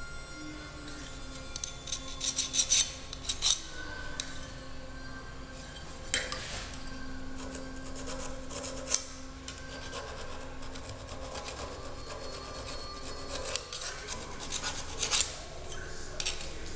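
Hand file scraping back and forth over a silicon-bronze weld on a metal part clamped in a bench vise, filing the excess weld down flush. The strokes come in quick runs, loudest a couple of seconds in and again near the end, with lighter strokes between.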